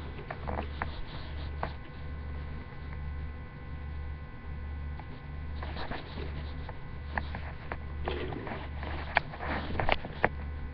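Small clicks and rattles from a Lego train rolling along plastic Lego track, sharpest in the second half. Underneath is a low hum that swells and fades about once a second.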